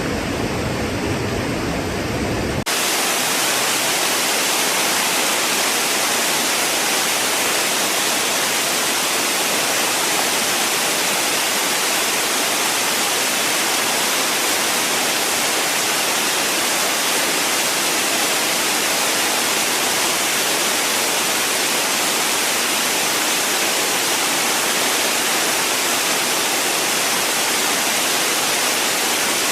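Waterfall rushing in a steady roar of falling water. About three seconds in it changes abruptly to a brighter, hissier rush with little low rumble, as if from a different fall.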